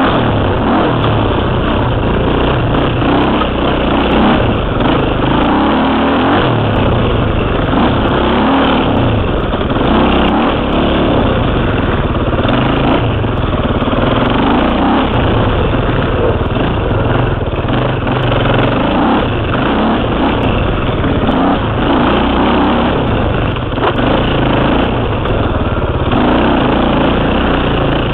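KTM 300 two-stroke dirt bike engine being ridden, its revs rising and falling constantly as the throttle is worked on and off.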